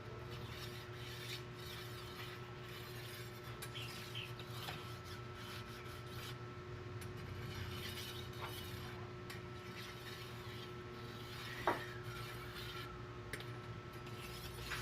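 Steel thickness planer blade being sharpened, rubbing and scraping against an abrasive, over a steady hum. A single sharp metallic clink comes a little before the end.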